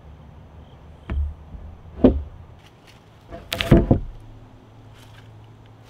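Heavy timber floor joists knocking and thudding onto the wooden sills as they are set into place. One knock comes about a second in, a sharper one about two seconds in, and a louder quick cluster of knocks past the middle.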